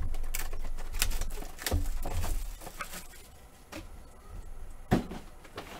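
Hands tearing into a cardboard blaster box of trading cards and handling the foil packs inside: crinkling, scraping and clicks, with dull thumps in the first couple of seconds and one sharp click about five seconds in.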